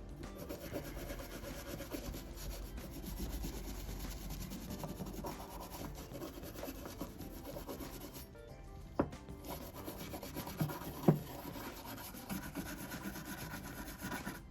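Hand scrubbing of bicycle parts during cleaning and degreasing: steady rubbing, with a few sharp knocks about nine and eleven seconds in.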